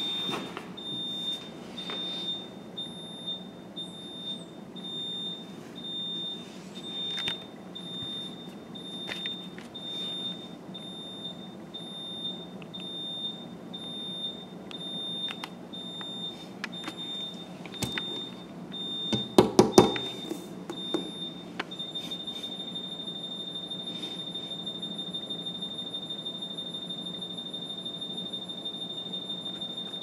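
Alarm keypad's high-pitched piezo beeper sounding short, evenly spaced beeps. It then switches to a steady, unbroken tone for the last third, soon after a brief loud clatter.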